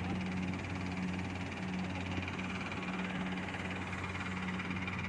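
Kubota DC70 Plus combine harvester running steadily while cutting rice: a low mechanical drone with a hum that swells and fades every half second or so.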